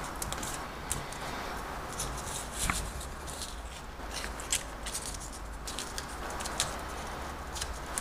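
A dollar bill rustling and crackling as fingers fold and crease it into an origami flapping bird, in many short sharp clicks over a steady hiss.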